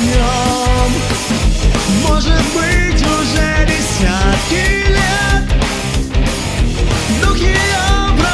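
Rock music: a full band with drums, bass and guitars, and a bending melodic lead line on top.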